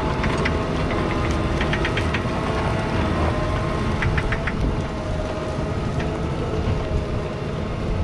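McCormick X7.621's 6.7-litre six-cylinder diesel engine running steadily with a low rumble and a constant hum, broken by a few short runs of rapid sharp clicking.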